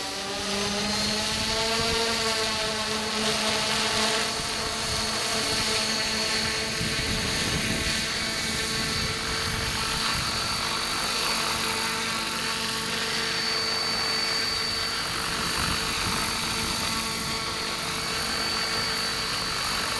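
Radio-controlled scale Hughes 500 model helicopter. Its motor and rotors spool up, rising in pitch over the first two seconds, then run at a steady pitch with a high whine as it lifts off.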